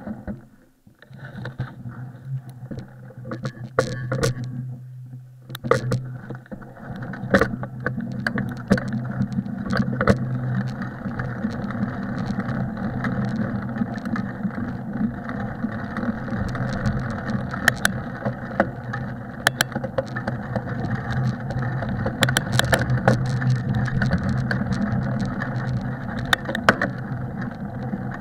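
Bicycle riding along a packed snow trail: a steady low rolling rumble of the tyres on snow, with irregular sharp clicks and knocks from the bike over bumps. It is quieter and uneven for the first few seconds, then settles into a steady rumble.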